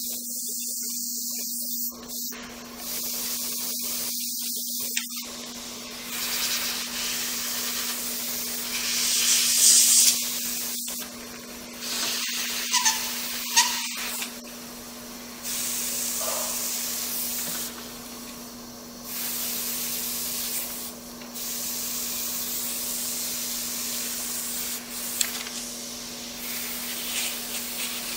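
Airbrush spraying: a hiss of compressed air that starts and stops in stretches of a few seconds as the trigger is worked, with a steady low hum underneath and a few light clicks.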